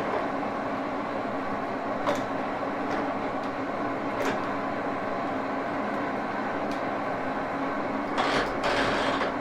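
Axelson engine lathe running steadily, a constant mechanical hum with a few light clicks. Near the end comes a louder hissing rush lasting about a second.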